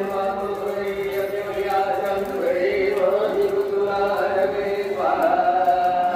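Devotional mantra chanting by voices, sung in long held notes that step from pitch to pitch.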